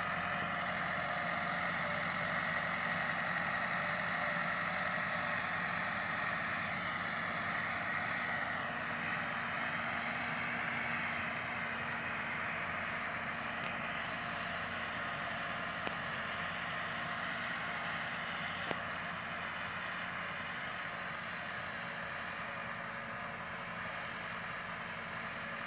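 Massey Ferguson 375 tractor's four-cylinder diesel engine running steadily under load as it pulls a land-leveling scraper across a field, growing gradually fainter as it moves away. Two brief ticks about two-thirds of the way in.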